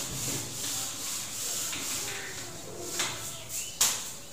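Whiteboard being wiped clean with a duster: repeated short rubbing strokes across the board, with a sharp click near the end.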